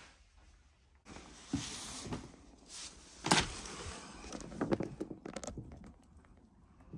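Handling noise of loose photographs being moved about and picked up: paper rustling with scattered light taps and clicks, the loudest a sharp click a little after three seconds.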